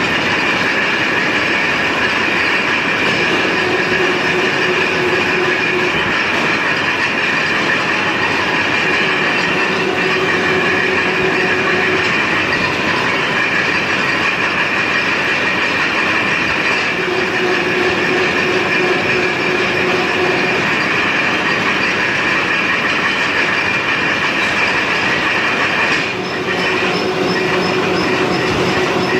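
Steel rebar mill machinery running: a loud, steady metallic din with a high whine. A lower hum comes and goes about every seven seconds, in step with the mill's repeating cycle.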